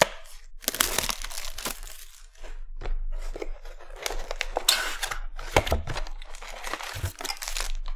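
Tearing and crinkling of packaging as a sealed trading-card hobby box is torn open by hand, with sharp crackles and rustles, then a foil card pack crinkling as it is pulled out and handled.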